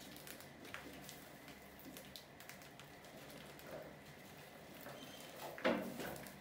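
Rodents scrabbling over a plastic bucket trap and its wire fan-guard cover: faint scattered pattering and clicks of claws on plastic and metal. A louder brief scrape or knock comes near the end.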